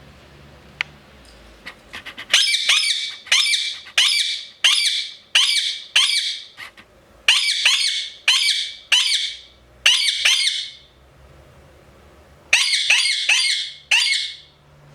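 Indian ringneck parakeet screeching: a run of about a dozen loud, shrill calls, roughly one or two a second, then a short pause and a quicker burst of about five more near the end. A sharp click about a second in comes before the calls.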